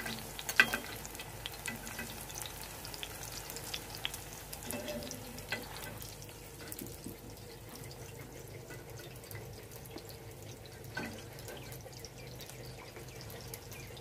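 Chicken chapli kababs shallow-frying in oil in an iron tawa, sizzling and crackling steadily. A slotted metal spatula clicks against the pan now and then as the kababs are turned, most sharply near the start and again about eleven seconds in.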